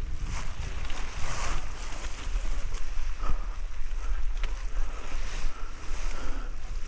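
Wind rumbling on an action camera's microphone, with the rustle of brush, pine needles and a ghillie suit as the wearer moves through scrub. A couple of sharp clicks come about three and four and a half seconds in.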